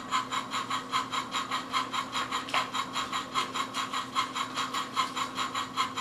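Electronic steam-engine chugging sound effect from a talking Take n Play Henry toy engine's small speaker, set off by pressing and holding its button: a steady run of about five chuffs a second.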